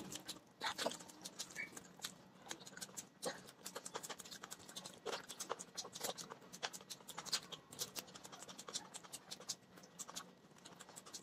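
Close-miked mouth sounds of eating rice and curry by hand: chewing and lip smacks as a fast, irregular run of small wet clicks.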